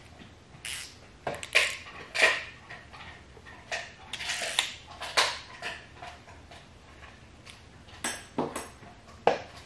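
Irregular metallic clinks and ticks of a hand driver working the timing-belt tensioner's two small M6 bolts as they are snugged down, a few sharper clinks standing out.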